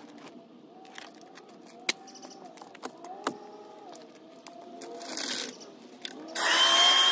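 A vacuum cleaner switches on about six seconds in, its motor and suction running loudly with a steady whine. Before that come faint scattered clicks and scrapes of car-interior cleaning.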